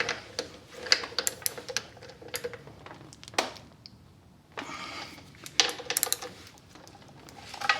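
A wrench clicking and clinking in irregular bursts of sharp metallic clicks as the 10 mm bolts of a Lifan KPR 200's front brake caliper are snugged up.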